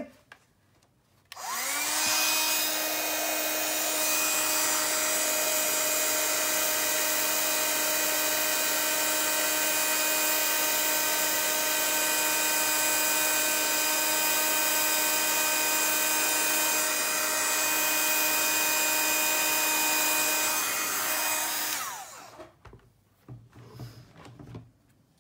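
Handheld embossing heat tool running steadily, blowing hot air to melt embossing powder on a stamped card. Its fan motor whines up to speed about a second in and winds down when switched off near the end.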